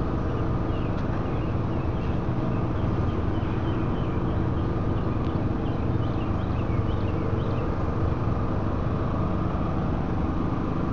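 Steady mechanical hum of running engines, like idling vehicles or generators, with faint high bird chirps through the middle.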